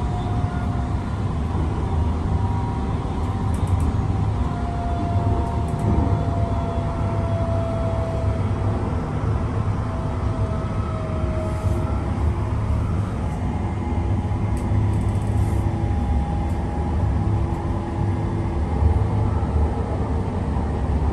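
Inside a Link light rail car running along the track: a steady low rumble of the train in motion, with a faint whine that slowly falls in pitch partway through.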